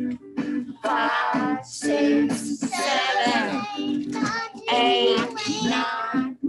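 Children's counting song: voices singing the numbers one after another over upbeat rock-and-roll music.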